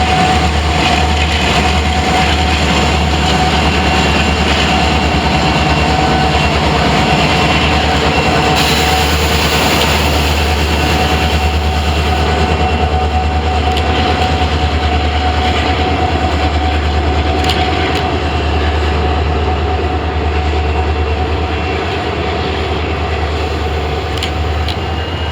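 Diesel freight locomotives working past: a loud, steady, deep engine drone with a constant whine above it, easing slightly near the end.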